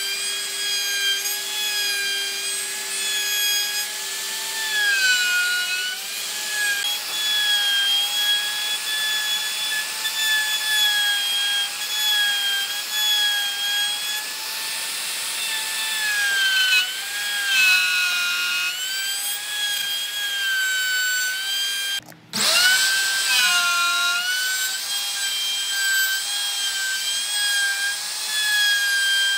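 A handheld electric power tool whines at high speed while cutting into wood. Its pitch sags each time it bites under load and then recovers. About three-quarters of the way through the sound cuts out for a moment and the motor spins back up.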